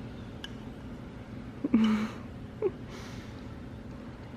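A short breathy vocal sound, like a gasp, about two seconds in, then a brief squeak and a soft breath, over a steady low hum.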